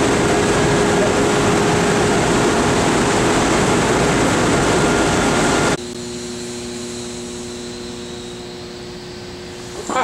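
Loud, steady rushing noise of water-treatment plant machinery in the filter pipe gallery. It cuts off abruptly about six seconds in to a quieter, steady machine hum with several steady tones.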